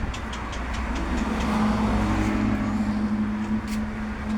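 A steady low motor hum with a rumble beneath it, rising briefly about a second in and then holding steady, like a motor vehicle running nearby.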